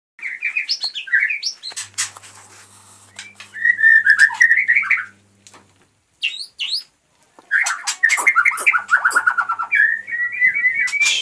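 White-rumped shama (murai batu) singing: several bursts of varied whistled phrases with quick rising sweeps, ending in a long run of rapid repeated notes, separated by short pauses.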